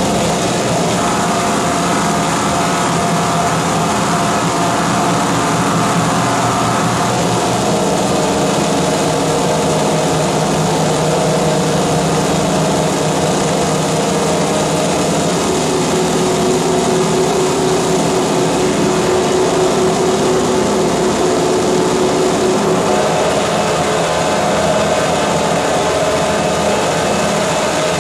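Live harsh noise played through electronics and effects pedals: a dense, unbroken wall of amplified noise with droning pitched tones inside it. The upper drone drops out about a quarter of the way in, and a lower one comes in about halfway.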